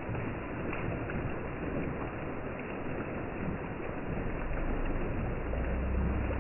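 Rain with wind, an even steady hiss; a deeper low rumble comes in near the end.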